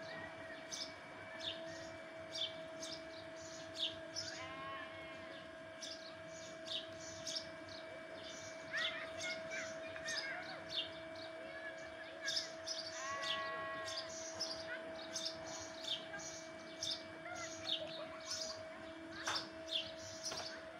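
Birds chirping in short, quickly repeated notes over a steady low hum, with a couple of longer wavering calls about four seconds in and again about halfway through.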